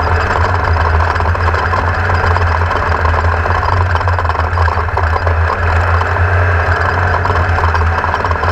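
Race vehicle's engine running loudly at a steady pitch, with a strong low hum under a broad rushing noise and no revving up or down.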